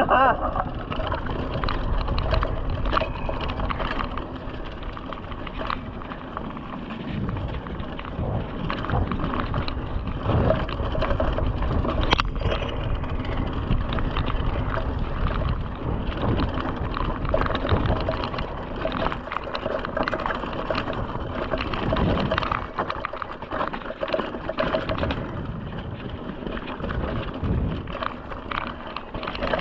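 Mountain bike being ridden along a dirt forest singletrack: tyre noise on the dirt and frequent rattles and clicks from the bike over bumps, over a steady low wind rumble on the microphone.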